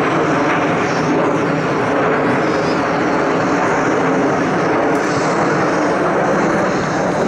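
Nine BAE Hawk T1 jet trainers flying in close formation, their turbofan engines making a steady jet rush.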